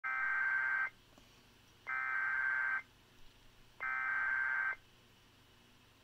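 Emergency Alert System SAME header: three short bursts of buzzy digital data tones, each just under a second long, about a second apart. The header encodes a National Weather Service Severe Thunderstorm Warning.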